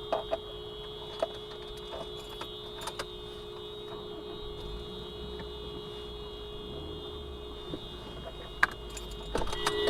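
Concrete mixer running with a steady whine, with irregular light clicks and clinks throughout and one sharper knock near the end.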